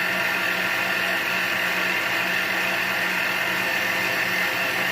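Metal lathe running at a steady speed, a constant hum with an even hiss above it, while a light spring pass is taken on an aluminum ring.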